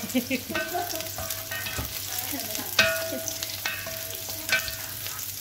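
Julienned strips frying in hot oil in a nonstick pot, sizzling steadily while a spatula stirs and scrapes them. The spatula knocks sharply on the pan twice, the louder knock about three seconds in leaving a short ring.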